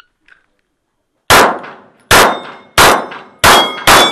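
Five quick 9mm pistol shots from a Canik TP9SFX, the first about a second in and the rest under a second apart, fired at steel plates. Each hit leaves a plate ringing with a bright metallic tone.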